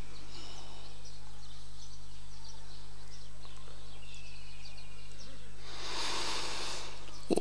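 Steady electrical hum from a public-address sound system between phrases of Quran recitation, with faint bird chirps. About six seconds in there is a short breathy rush of noise, the reciter drawing breath at the microphone.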